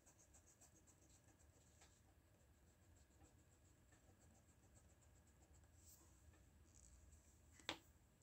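Faint, scratchy strokes of a graphite pencil on drawing paper, with one sharp tap near the end.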